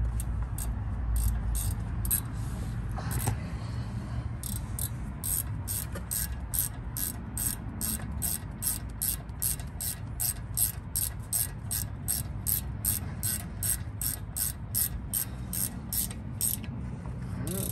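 Ratchet wrench clicking steadily, about three clicks a second, as it runs in a front brake caliper bolt, after a few scattered clicks at the start.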